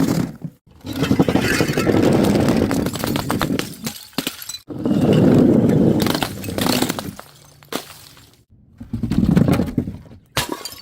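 Brittle things being crushed and breaking: three long bouts of dense crackling and crunching, each lasting a few seconds, with a sharp snap near the end.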